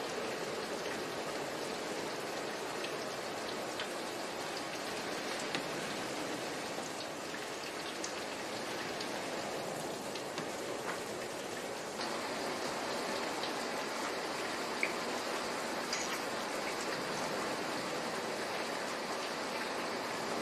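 Steady rain falling, with scattered drops ticking on a surface.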